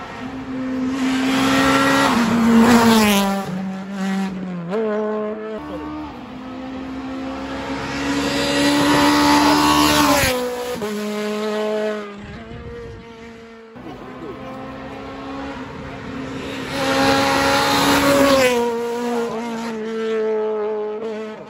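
Three rally cars passing at speed one after another on a tarmac stage, the middle one a Citroën C2. Each engine is revved hard and changes gear, growing louder as the car goes by and falling away after.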